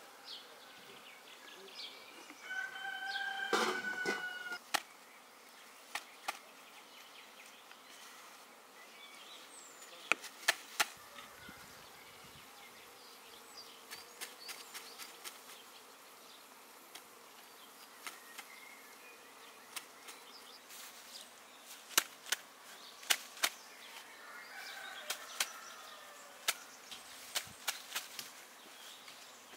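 Insects buzzing outdoors, with a brief high call about three seconds in and scattered sharp clicks and knocks.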